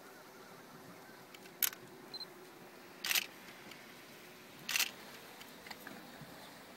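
Single-lens reflex camera shutter firing three times, about a second and a half apart, each shot a short double click. A faint, brief high beep sounds about two seconds in.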